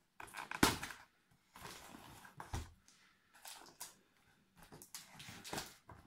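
Cardboard box being handled and its tape slit open with a knife: irregular scraping and rustling with a few knocks, the sharpest about half a second in and a duller thump a couple of seconds later.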